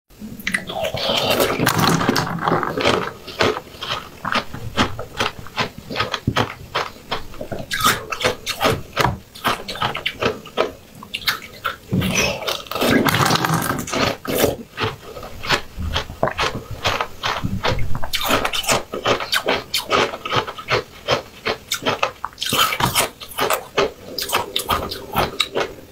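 Close-miked mouth sounds of eating juice-filled jelly balls: wet biting, squishing and slurping, with rapid smacking clicks and a few longer slurps.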